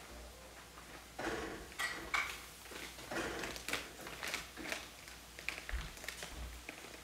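Kitchen clatter of utensils, pots and containers being handled and set down: a run of irregular knocks and clinks, a few each second, starting about a second in.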